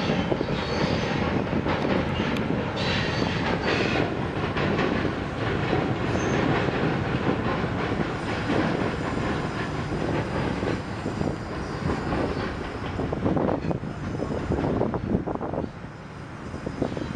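Freight train of refrigerated juice boxcars rolling across a railroad bridge: a steady rumble with the wheels clattering over the rail joints. It drops off near the end as the last car passes.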